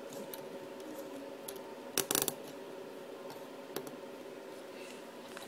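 Plastic zip tie being handled and threaded through a hole in a servo arm: a few light clicks, then a quick cluster of sharp clicks about two seconds in as the tie is pushed and pulled through, over a steady faint hum.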